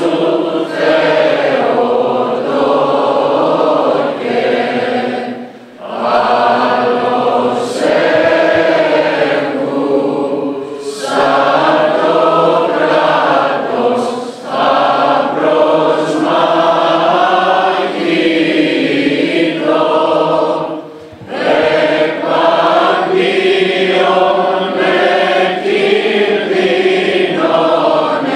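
A large crowd of men and women singing together in unison, line by line, with short breaks for breath between phrases.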